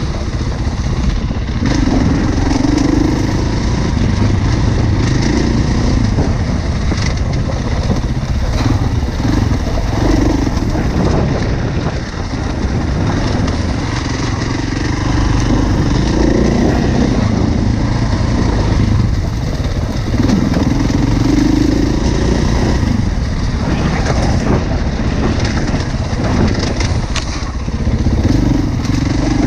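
Enduro dirt bike engine running under a rider, revving up and down in surges every second or two over a steady low rumble.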